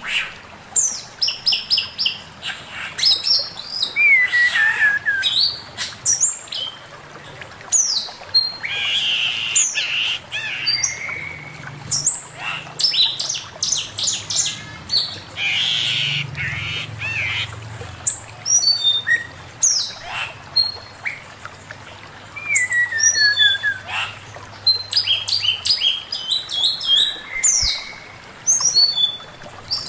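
Male hwamei (Chinese hwamei, known as poksay mandarin) singing a varied, loud song of quick whistled phrases and sliding notes, with a falling run of notes heard twice.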